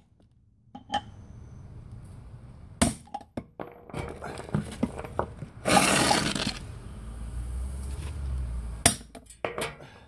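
Hammer blows on a brass drift, knocking a press-fit wheel stud out of a GM 14-bolt full-floating rear hub. The sharp metal strikes are loudest about three seconds in and near the end, with smaller clinks between them and a short stretch of scraping and rattling as the hub is handled about six seconds in.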